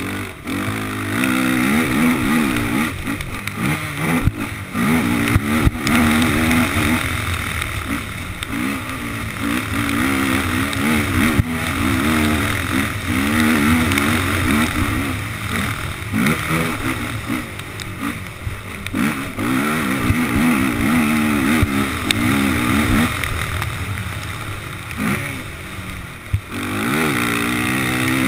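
Honda race quad's engine at racing speed, revving up and dropping back again and again as the throttle is worked on and off over the dirt track, with a few sharp knocks along the way.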